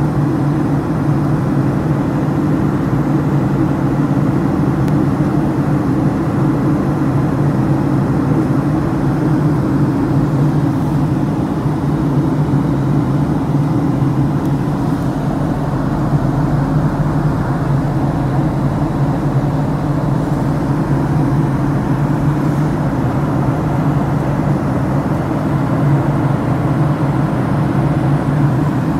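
Airliner cabin noise in cruise or descent: the engines and the air rushing past make a loud, steady low drone that does not change.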